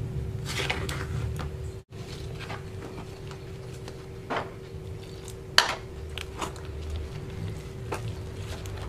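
Metal spoon stirring a thick flour batter in a stainless steel bowl: irregular scrapes and clinks of spoon against bowl, with the sharpest knock about five and a half seconds in.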